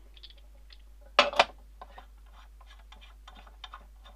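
Two sharp knocks close together about a second in, then a run of light clicks and taps as the parts of a microscope stand, its upright pole, base plate and a fitting, are handled and knocked together.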